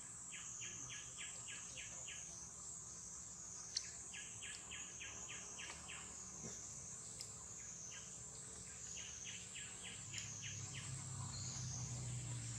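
Insects droning steadily at a high pitch, the tone wavering slowly up and down. Over it come three runs of about seven quick chirps, roughly four a second. A low hum builds near the end.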